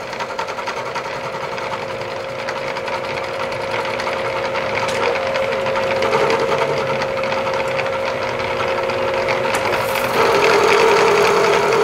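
Milling machine cutting a metal part flat, the spindle's steady whine over the rattle of the cutter taking chips. It grows gradually louder, and a stronger, slightly deeper tone joins about ten seconds in.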